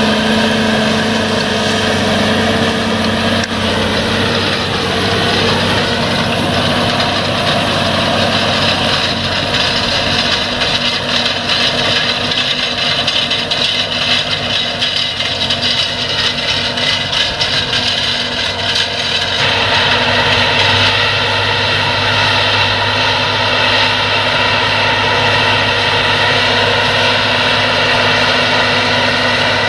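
John Deere 8345R tractor's six-cylinder diesel running steadily under load while pulling a disc cultivator through stubble, mixed with the noise of the implement working the soil. About five seconds in, the engine note dips in pitch and recovers, and the sound changes abruptly about two-thirds of the way through.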